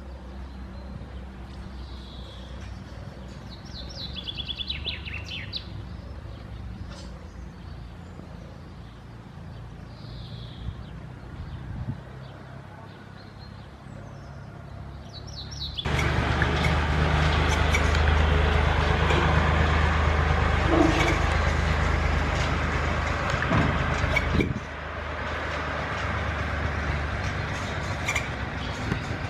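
Small birds chirping a few times over a low steady hum. About halfway through, a much louder even rushing noise starts suddenly and carries on, easing off after about eight seconds.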